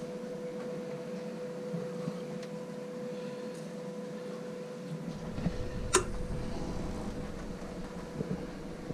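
Steady hum of machinery running in a yacht's engine room, with a constant mid-pitched whine. A deeper rumble comes in about five seconds in, and a single sharp click follows a second later.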